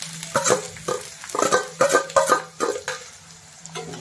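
Steel bowl and spatula clattering and scraping against a stainless steel pan as chopped onion is tipped into hot oil and stirred, in a quick run of clanks with short metallic ringing that eases off near the end.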